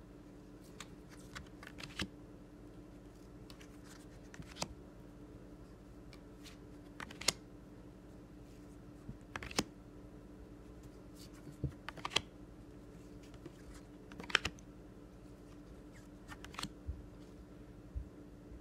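Stiff palm-reading cards being handled and flipped one by one: sparse light clicks and taps of card stock, every second or two, over a faint steady hum.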